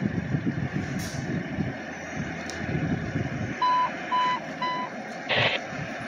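Heavy truck engine rumbling steadily. A little past halfway come three short, evenly spaced electronic beeps, and a brief hiss of air follows near the end.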